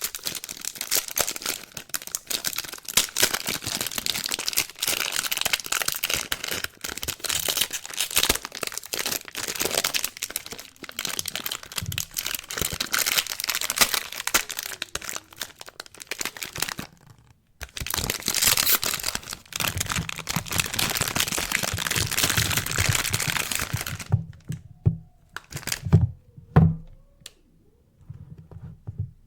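Soap packaging crinkling and tearing as it is unwrapped by hand, a dense run of crackles with a brief break about seventeen seconds in. Near the end the crackling stops and only a few separate knocks and taps remain.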